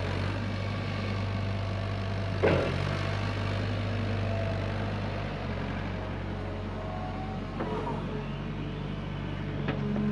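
Hyundai HX85A excavator's diesel engine running steadily while it digs, with one sharp knock about two and a half seconds in and a couple of lighter clunks near the end.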